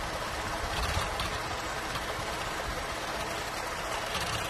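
Holden VZ Commodore's 3.6-litre Alloytec V6 idling steadily but rough, misfiring on cylinders 1, 3 and 5, the bank with no spark. A coil is unplugged on that bank and the idle does not change, because those cylinders are already dead.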